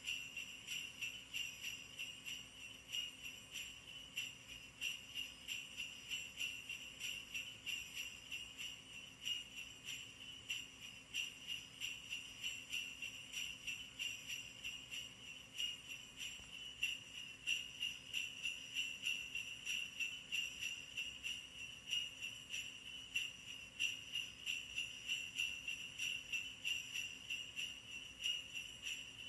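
Sleigh bells jingling in a steady beat, about two shakes a second.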